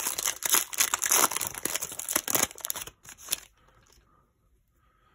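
Foil wrapper of a 2019 Topps Gallery baseball card pack crinkling and tearing as it is ripped open by hand. The crinkling stops about two and a half seconds in, with one short rustle just after.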